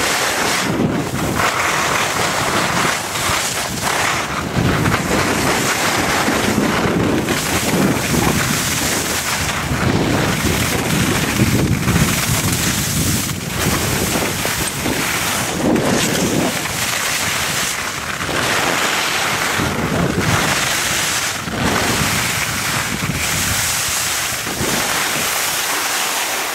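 Wind buffeting the microphone of a camera carried by a downhill skier, with the hiss and scrape of skis on packed snow; the rushing rises and falls unevenly.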